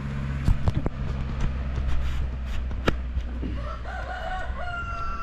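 A rooster crows once, a single drawn-out call starting about two-thirds of the way in. Underneath is a steady low hum, with a few sharp knocks earlier.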